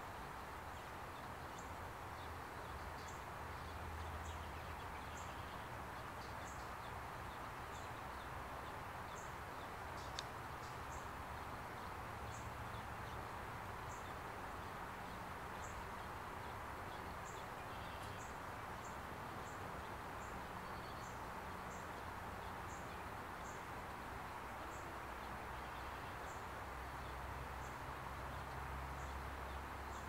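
Steady outdoor background noise, with faint, short, high-pitched chirps recurring about once a second and a single sharp click about ten seconds in.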